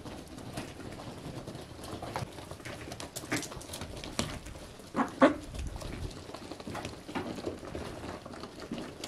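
Ducks and chickens feeding on grain: many quick pecking clicks of bills on the feed and floor, with two short, loud bird calls close together about five seconds in.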